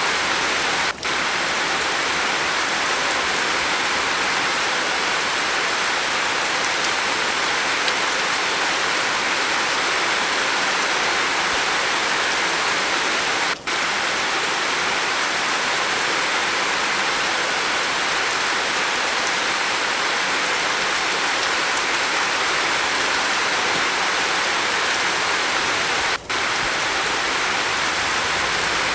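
Steady rain falling on a roof, an even hiss of dense drops. It cuts out for an instant three times, about every twelve and a half seconds.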